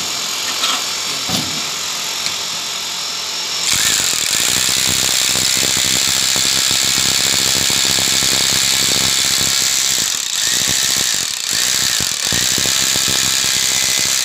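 Corded hammer drill boring into a concrete base with a fast hammering rattle, starting about four seconds in, with two brief pauses in the second half.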